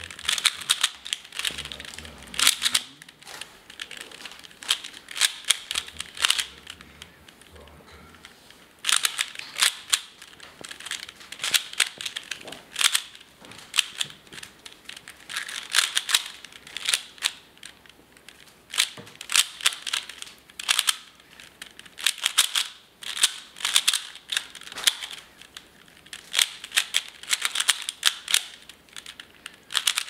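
A 3x3 Rubik's cube being turned rapidly by hand: quick runs of plastic clicks as the layers snap round, in bursts with short pauses and a quieter lull about eight seconds in.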